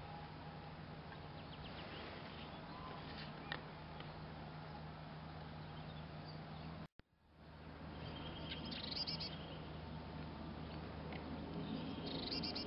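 Birds chirping: a few short, high calls now and then over a faint steady low hum. The sound drops out completely for a moment about seven seconds in.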